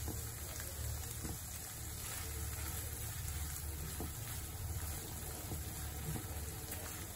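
Chicken liver cooking in oil in a nonstick frying pan, a steady soft sizzling and bubbling over a low rumble, with a few faint taps of a silicone spatula stirring.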